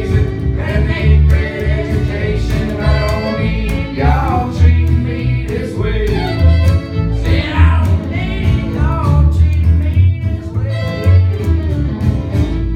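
A live bluegrass-style string band of upright bass, acoustic guitar and fiddle playing, with the bass keeping a steady beat under the guitar and the sliding fiddle lines.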